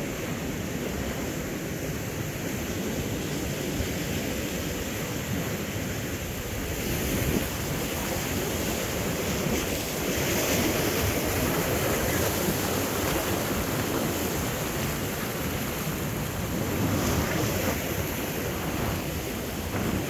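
Surf washing and breaking against jetty rocks, with wind buffeting the microphone. The rush of water swells louder about seven seconds in and again about ten seconds in.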